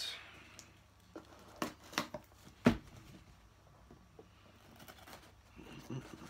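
A parcel being opened by hand: a short tearing rustle of packaging at the start, then a few sharp clicks and knocks, the loudest about two and a half seconds in, and a faint rustle near the end.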